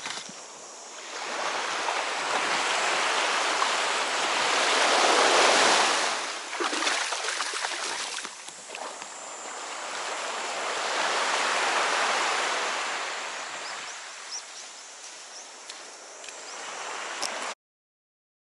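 Sea waves washing in two slow swells, each building over a few seconds and then ebbing; the sound cuts off abruptly near the end.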